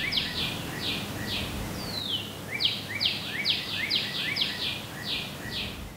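A songbird singing a long run of quick, repeated down-slurred whistled notes, about two to three a second, broken about two seconds in by a single longer falling note before the run picks up again.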